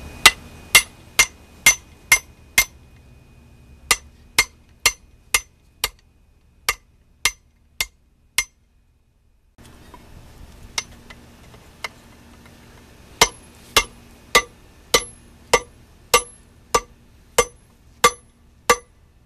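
Blacksmith's hand hammer striking red-hot steel on an anvil in runs of about two blows a second, each blow a sharp metallic clink with a short ring. The sound cuts out for about a second near the middle, then the hammering resumes.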